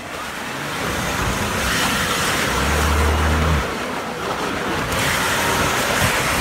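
Nissan Patrol Y60 off-roader driven at full throttle, its engine running hard while its large mud tyres spin in snow and mud. The rushing of the thrown snow and slush is louder than the engine and grows over the first couple of seconds.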